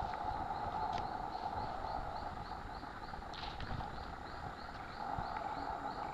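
Insect chorus: a steady buzzing drone that drops away for a couple of seconds in the middle, with a high, even chirp about three times a second over it.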